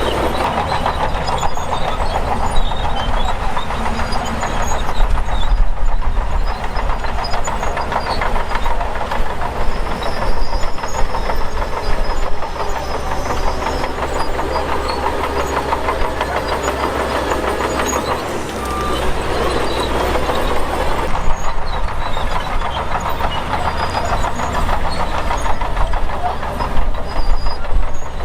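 Shantui DH17 bulldozer's diesel engine running under load, with a continuous clattering rattle and a deep rumble as it pushes dirt.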